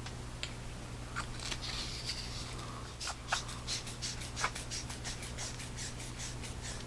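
Small clicks and scrapes of a 21700 cell being loaded into an AstroLux DL01 dive flashlight and its tail cap being screwed down on the threads, with a quick run of ticks in the middle as the cap turns.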